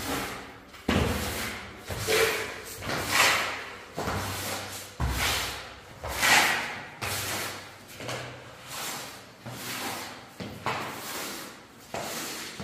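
Rubber floor squeegee pushed across a wet concrete floor in repeated scraping strokes, about one a second, with a couple of sharper knocks as the blade is set down.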